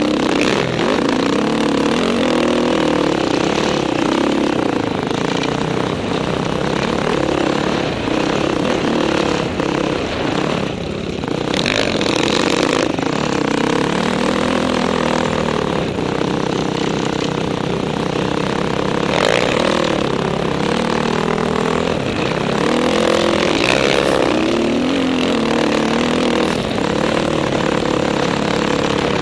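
Dirt bike engine running under a constantly changing throttle, its pitch rising and falling as it revs, with a steady rush of wind noise over the helmet-mounted microphone. The engine eases off briefly about eleven seconds in.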